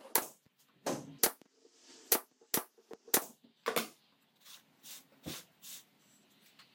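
Brad nailer firing, a series of sharp snaps about half a second apart as brads are driven through the board into the runners beneath; the later shots are fainter.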